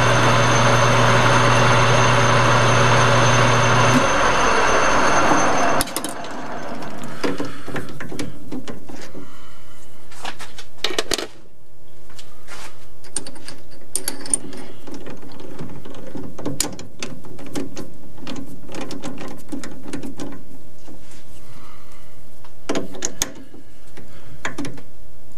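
Small metal lathe running steadily, then winding down and stopping about four to six seconds in. After that come scattered metal clinks and clicks of tooling being handled, with a drill bit being tightened in a drill chuck with a chuck key near the end.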